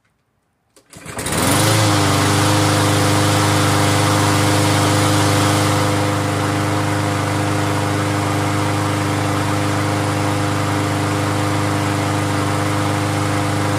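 Single-cylinder Briggs & Stratton Platinum 7.25 lawn mower engine starting about a second in, its pitch rising briefly, then running steadily, on its newly fitted replacement carburetor.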